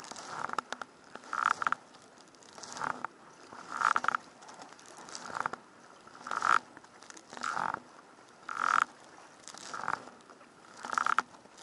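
Kayak paddle blades dipping into the sea on alternate sides, a splash with each stroke about once a second, over the wash of the water against the hull.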